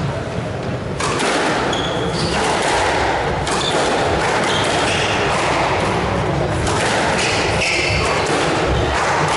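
Squash rally: the ball smacks sharply off rackets and walls every one to three seconds, with short high squeaks of shoes on the wooden court floor in between.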